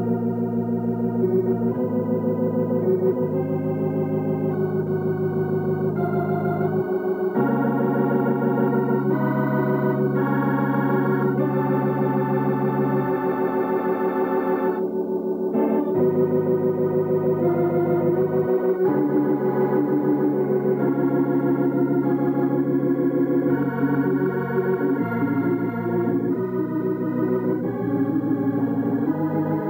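Organ music: sustained chords over long held bass notes, changing every few seconds.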